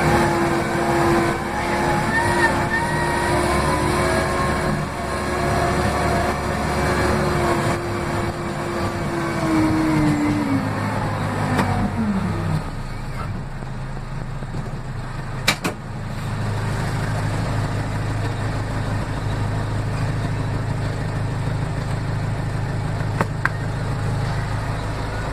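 Case 580M backhoe loader's diesel engine running at high revs, then dropping back to a lower idle about ten seconds in, with the pitch falling over a couple of seconds. Two sharp clicks come later, one about two-thirds of the way through and one near the end.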